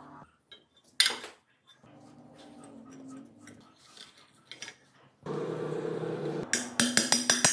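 Metal parts clinking and knocking as an aluminium engine side cover is handled on a wooden workbench and a shaft is fitted into it. There is a sharp knock about a second in, and a quick run of ringing metallic clicks near the end.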